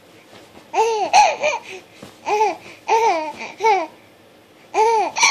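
A baby laughing in a run of short, high-pitched 'ah' sounds that rise and fall in pitch, with a pause about four seconds in.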